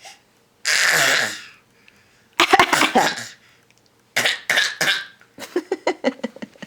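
Fake coughing: a long breathy cough about a second in, then more forced coughs in quick runs, ending in a rapid string of short hacks.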